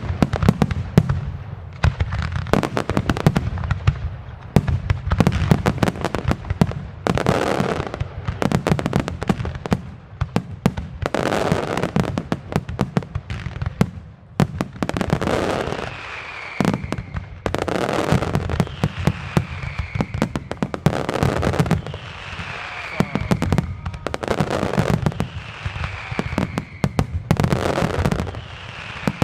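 Fireworks finale: aerial shells and salutes going off in dense, overlapping volleys of booms and sharp bangs, in waves every second or two. In the second half, falling whistles recur every two to three seconds over the bangs.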